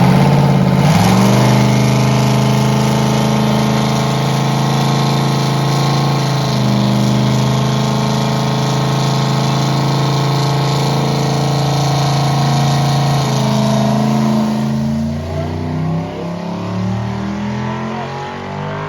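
Car engine under hard throttle, its revs climbing about a second in and then held high and steady, with a brief dip and recovery about six seconds in. From about thirteen seconds the revs drop away as the throttle comes off.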